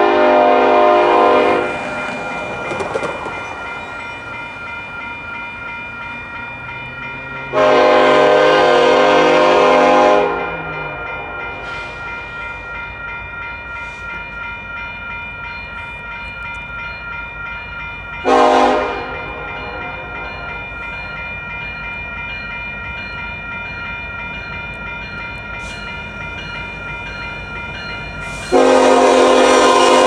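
Locomotive's Nathan K5LLA five-chime air horn blowing the grade-crossing signal: long, long, short, long. The first blast fades about a second in, and the last begins near the end. Underneath, a railroad crossing's warning bell rings steadily.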